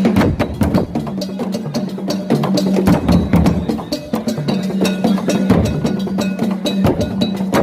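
African drums played in a fast, busy rhythm: sharp, crisp strokes over a recurring deep, booming drum tone.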